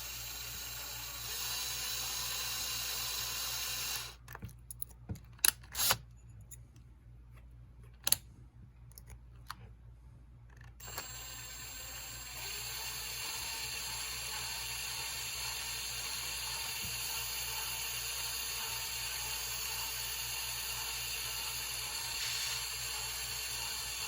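Steady hiss with a faint high whine. In a quieter stretch a few seconds in, a handful of small sharp clicks come from a tiny hand tap being worked into a die-cast toy car's base.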